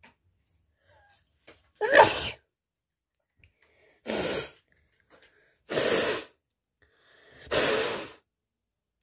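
A person sneezing, four bursts in all, about two seconds apart. The first has a voiced, pitched sound and is the loudest; the later three are hissier blasts of air.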